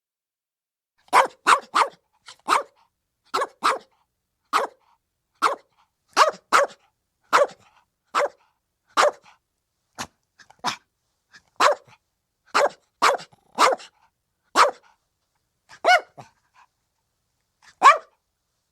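Chihuahua puppy, a 75-day-old female, barking in short, high barks, roughly one a second, some in quick runs of two or three, beginning about a second in.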